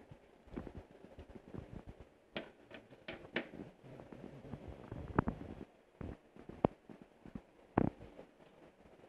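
Scattered knocks, clicks and scrapes of hard, dry specimens being put down and picked up on a wooden shelf, with three sharper knocks in the second half.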